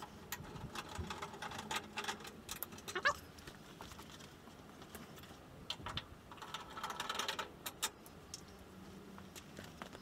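Small clicks, taps and scrapes of a T20 Torx screwdriver undoing screws in a washing machine's lower front panel, with some rustling of handling.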